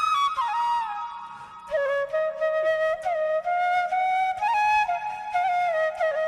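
Background music: a solo flute playing a slow melody of held notes with short slides between them.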